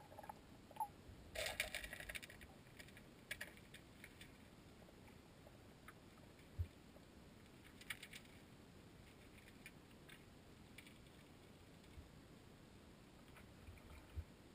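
Near silence through a submerged camera, broken by scattered faint clicks and ticks, with a short patch of crackling about a second and a half in.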